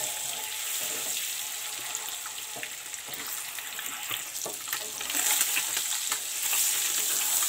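Scored boiled eggs sizzling in hot oil and spice as they shallow-fry to a light golden brown, with scattered clicks of a wooden spatula turning them in the pan. The sizzle grows louder about five seconds in.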